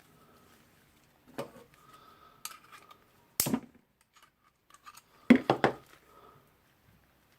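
Screwdriver prying a steel spring ring on a rotary hammer drill's internal hammer piston: scattered metal clicks and scrapes, with the loudest cluster about five seconds in.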